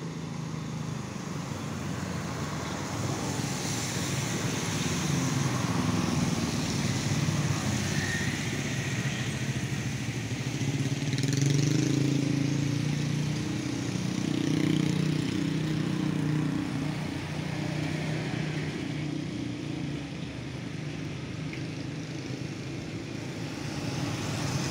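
Road traffic on a wet road: motorcycle and car engines swelling and fading as vehicles pass one after another, over a steady hiss of tyres on wet asphalt.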